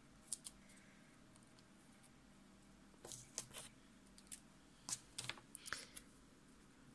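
Faint, scattered clicks and rustles from hands handling paper and sticky tape, in a few short clusters over near-quiet room tone.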